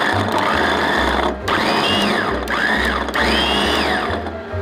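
Electric mini food chopper with a glass bowl whirring as its blades chop carrot pieces to pulp. It runs in pulses: a short break about a second in, then the motor speeds up and winds down twice.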